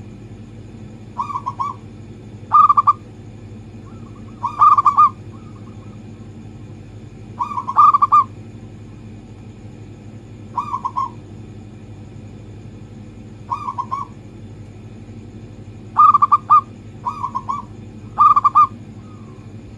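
Zebra doves (perkutut) cooing: about nine short trilled coos, one to three seconds apart, over a steady low hum.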